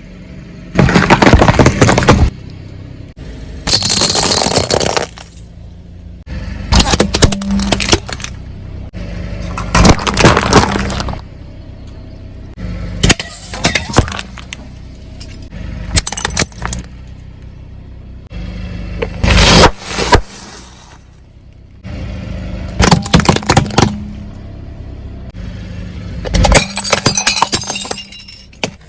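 A car's tyres rolling over and crushing soft-drink containers: a loud crunching, cracking burst every few seconds, about nine in all, over the steady low hum of the car's engine.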